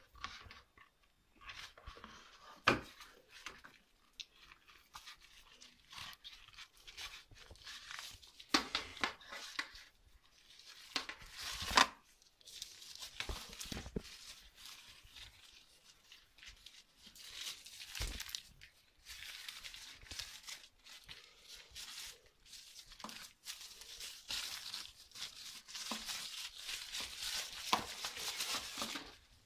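Paper and cardboard packaging of a smartphone box being handled: tissue paper rustling and crinkling in irregular spurts, with a few sharp knocks in between and a longer stretch of crinkling near the end.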